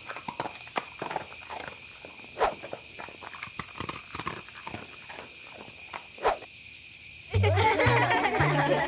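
A run of irregular light taps and clicks, several a second, over a faint steady high-pitched tone, with two louder knocks along the way. Background music starts up again near the end.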